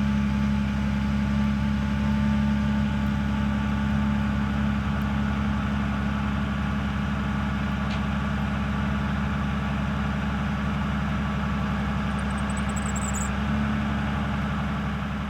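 Mercedes Sprinter van's engine running steadily with an even low hum, shifting slightly in tone near the end.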